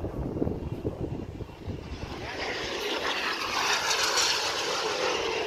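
Radio-controlled model airplane flying past overhead, its engine noise swelling from about two seconds in and loudest around four seconds. Wind buffets the microphone at the start.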